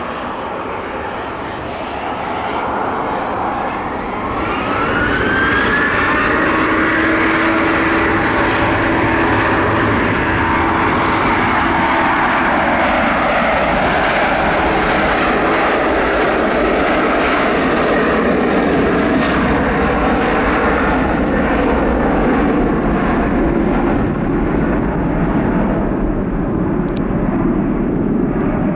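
Boeing 737-700's CFM56-7B turbofan engines spooling up to full takeoff power, with a rising whine about three to five seconds in. The engines then run loud and steady through the takeoff roll, the sound deepening toward the end as the airliner rotates.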